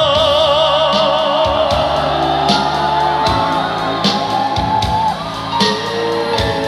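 Live trot performance: a male singer holds the last note of the verse with wide vibrato over the band, letting it go about a second and a half in. The band then carries on into an instrumental interlude, with a sliding melody line and drum hits.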